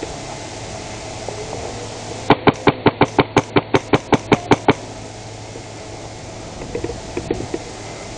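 Airsoft gun firing a quick string of about fifteen shots, roughly six a second, for about two and a half seconds starting about two seconds in. A few fainter clicks follow near the end.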